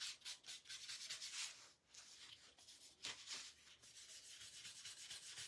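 Faint scratchy rubbing of a paintbrush working wax onto a painted frame, in quick repeated strokes.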